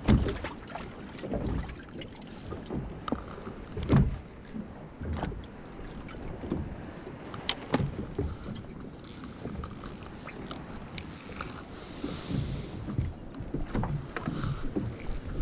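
Wind buffeting the microphone on a small boat at anchor, with water lapping at the hull and a few sharp knocks of gear being handled, one about four seconds in and another a few seconds later.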